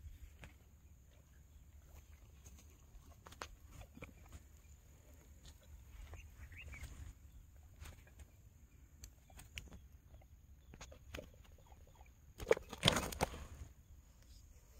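Large rohu being handled on grass, with scattered small clicks and rustles over a low steady rumble. About twelve and a half seconds in comes a louder rustling, crackling burst of about a second as the fish are put down on the grass.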